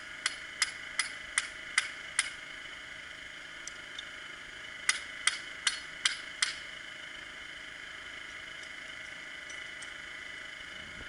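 Hand hammer driving a bolt into a freshly drilled hole in the rock: six sharp strikes at about two and a half a second, a pause of about two seconds, then five more, after which the hammering stops.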